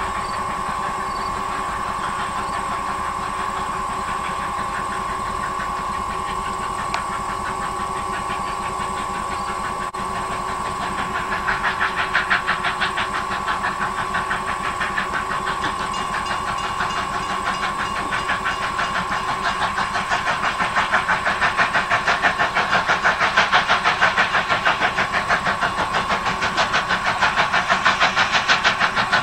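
Strasburg Rail Road No. 90, a 2-10-0 steam locomotive, working a passenger train: a fast, even beat of exhaust chuffs. The beat comes up about ten seconds in and grows louder as the locomotive approaches.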